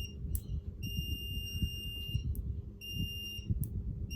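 Multimeter continuity buzzer sounding a steady high beep in uneven stretches, about a second on, then half a second off, as the probes make and break contact. A beep means continuity between the probes. Small clicks fall between the beeps.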